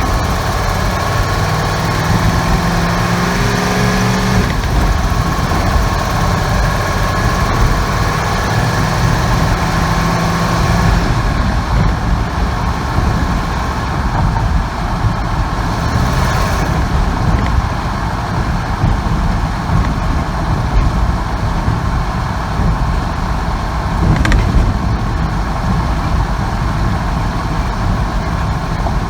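1998 Ford 5.4-litre two-valve V8 running steadily, with the noise that was traced to a cracked exhaust manifold between cylinders 6 and 7. The sound changes about a third of the way through, and there is a brief sharp sound near the end.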